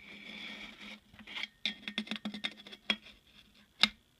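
Handling noise of an airsoft rifle and its parts in a styrofoam-packed box: irregular small clicks, taps and scrapes, with one sharper knock near the end.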